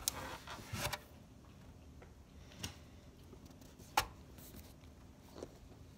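A handful of light, scattered clicks and taps from a plastic salad-dressing squeeze bottle and a plastic food container being handled, the sharpest about four seconds in.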